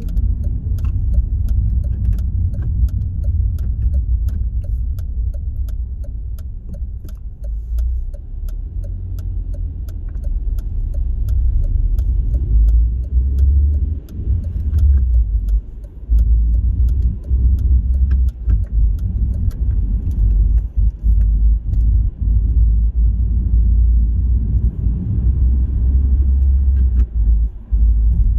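Car cruising on a motorway: a steady deep rumble of road and engine noise, with a fast run of light ticking over roughly the first twenty seconds.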